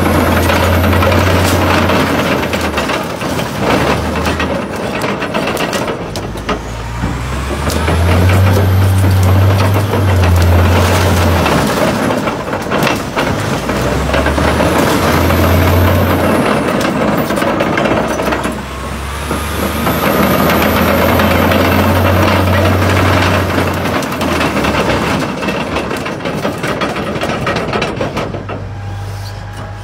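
A Caterpillar D11T bulldozer's diesel engine runs hard as its steel crawler tracks clank and grind over a car, with many sharp cracks and crunches of metal giving way. The deep engine drone swells and drops several times, and a high whine comes and goes with it.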